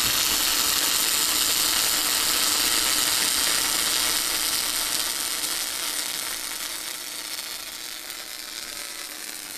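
Millermatic 255 inverter MIG welder's arc running steadily in short-circuit transfer (a "short arc") with .035 wire and 75/25 gas at 22 volts, then cutting off sharply at the end as the trigger is released.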